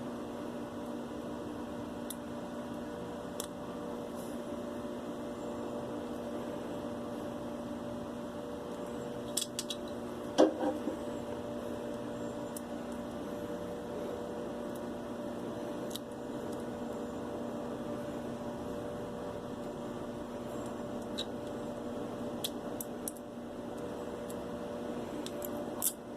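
Steady background hum with a few faint metallic clicks and taps, and one louder tap about ten seconds in, from the small parts of an opened ratchet being handled.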